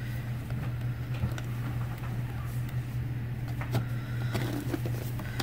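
Steady low background hum, with a few faint scrapes and clicks as a cardboard box is cut open with an eyebrow razor.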